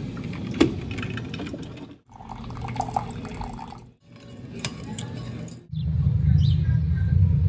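Drip coffee maker brewing: water gurgling and dripping into the glass carafe, heard in short cut-together snippets with small clicks. Near the end the sound cuts to a steady low rumble.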